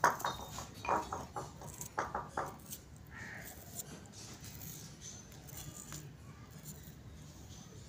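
A small kitchen knife peeling and trimming an onion: a few light clicks and scrapes in the first couple of seconds, then only a faint low background hum.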